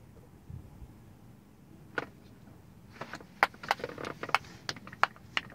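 A run of sharp clicks, about three a second, starting about three seconds in, after a single click about two seconds in.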